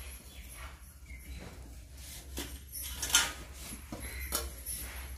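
A banana leaf rolled up by hand on a stainless steel plate: the leaf rustles and rubs, with light scrapes and taps on the metal, the sharpest about three seconds in. A low steady hum runs underneath.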